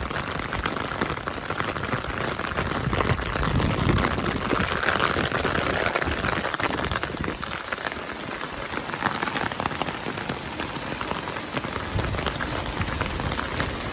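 Heavy rain falling steadily, a dense patter of drops, described as raining super hard.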